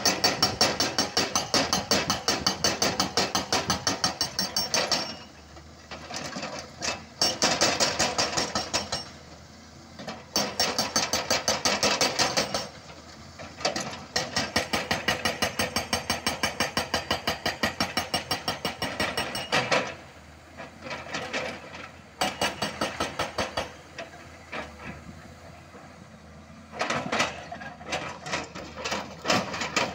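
Hydraulic rock breaker on a Volvo tracked excavator hammering a boulder: rapid, evenly spaced chisel blows in bursts of a few seconds, with short pauses between bursts. The excavator's engine runs underneath in the gaps.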